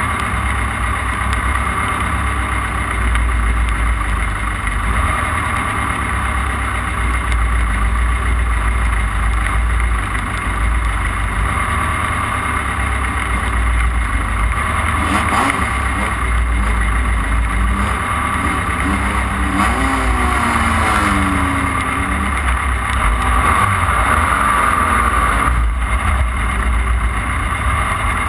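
Off-road race car's engine running hard under a constant heavy rumble. Through the middle stretch its pitch climbs and drops several times as it revs up and comes off the throttle.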